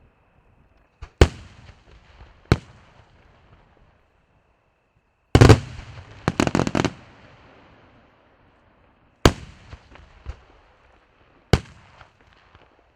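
Aerial fireworks shells bursting: single sharp bangs, a cluster of rapid bangs and crackling about five to seven seconds in, then more single bangs spaced a second or more apart.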